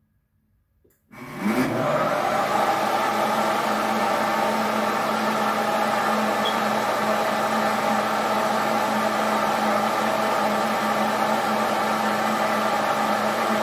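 Electric blender starting up about a second in, its motor rising in pitch as it comes up to speed, then running steadily as it purees cucumbers with water.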